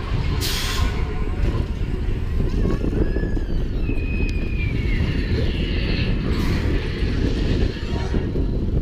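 Slinky Dog Dash roller coaster train running fast along the track, a steady low rumble with wind buffeting the rider-mounted microphone. A short hiss comes about half a second in.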